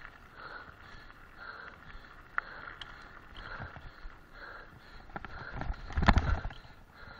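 Mountain bike clattering and rattling over a rough dirt track, with a loud burst of jolts and knocks about six seconds in as it crosses rutted ground.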